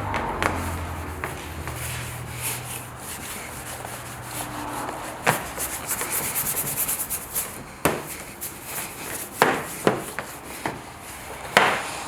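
Hand rubbing across car paintwork, a continuous scraping hiss, with several sharp knocks in the second half.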